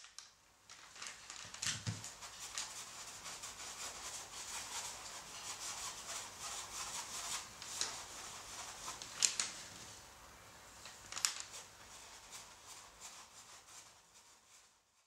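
A paintbrush swishing and scrubbing gesso onto a raw linen canvas in repeated brushstrokes. A few sharp clicks stand out, the loudest about nine and eleven seconds in.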